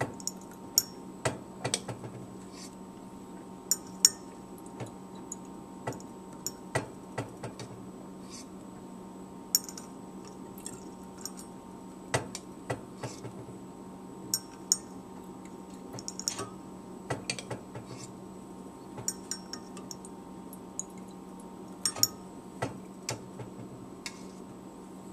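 Water drops from an eyedropper falling into a glass volumetric flask, as small, sharp plinks at irregular intervals, roughly one every second or so.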